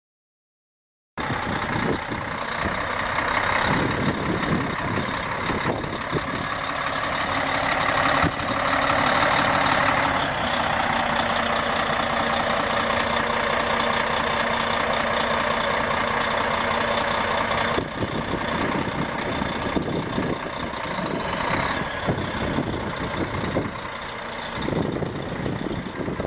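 2004 Volvo VNL semi tractor's diesel engine running steadily, starting about a second in; its low note changes a little past the middle.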